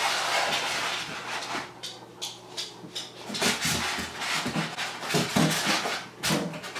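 Packaging being handled: a rustle as a protective wrap sheet is pulled from the iMac box, then irregular light knocks and scrapes of foam inserts and cardboard being moved.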